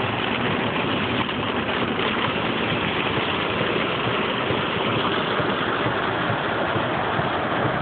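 Steady noise heard from inside a car driving through heavy rain: rain on the body and windshield and the tyres on the wet road, with the car's engine running underneath.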